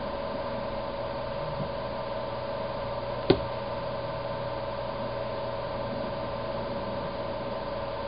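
Steady background hum and hiss with a few constant tones, broken by a single sharp click about three seconds in.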